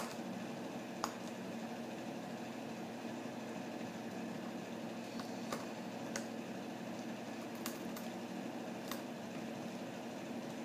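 Scattered sharp clicks, about eight in ten seconds, over a steady low hum: a Goffin's cockatoo's beak and wet wooden block knocking against a drinking glass as it dips the block and chews it.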